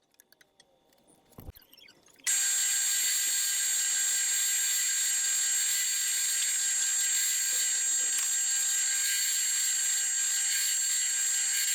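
Drill press motor running at steady speed, a high whine made of several fixed tones. It starts abruptly about two seconds in, after near silence with a few faint clicks.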